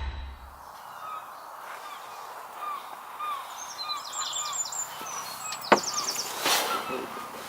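Woodland birds calling: a short chirp repeated about twice a second, with a brief higher-pitched song phrase about four seconds in. A single sharp click comes just before six seconds.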